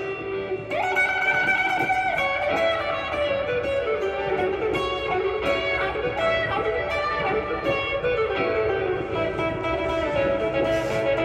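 Acoustic guitar playing an improvised single-note lead line, with some notes held and others gliding in pitch.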